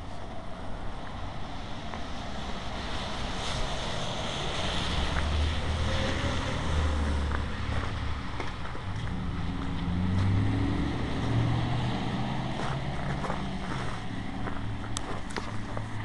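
Road traffic passing on a wet, slushy street: tyre hiss with engine noise that swells through the middle as a vehicle goes by, its engine pitch rising. There are a few light clicks near the end.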